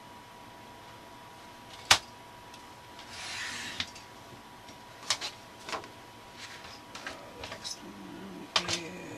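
Paper-crafting handling noises on a work table: a sharp tap about two seconds in, a sheet of patterned cardstock sliding and rustling for under a second, then scattered light taps and clicks as papers and tools are set down.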